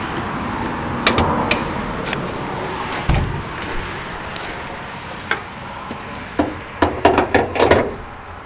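Clicks and knocks from a car hood being opened and handled: a couple of sharp clicks about a second in, a dull thump about three seconds in, then a quick cluster of rattling clicks and knocks near the end, over a steady background noise.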